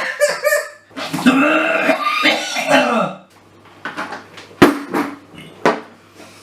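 A person coughing and making strained vocal noises while eating. It then goes quieter, with a few clicks and a sharp knock about four and a half seconds in.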